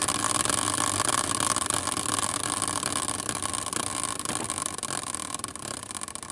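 Team-logo prize wheel spinning in its caster bracket, its pointer clicking against it in a rapid, dense rattle that gradually gets quieter as the wheel slows.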